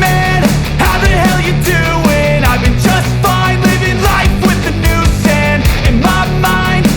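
Loud background music with a rock-style band and a sung melody.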